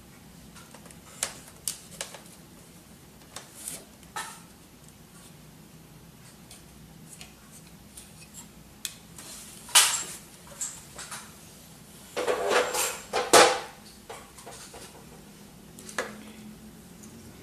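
Scattered clicks and knocks of parts from a dismantled HP F2410 printer and small tools being handled on a wooden tabletop. The loudest knock comes about ten seconds in, followed by a quick run of clatters a couple of seconds later.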